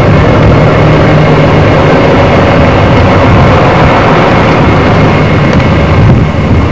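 Loud steady rumble and hiss of wind buffeting the camcorder's built-in microphone.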